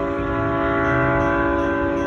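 Locomotive air horn held in one long, steady blast, a chord of several notes sounded together: the warning of an oncoming train.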